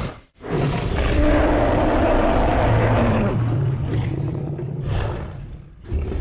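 Deep creature roar sound effect: one long, growling roar of about five seconds that fades out, with another short roar starting near the end. It is made from Spinosaurus and Rudy roars pitched deeper.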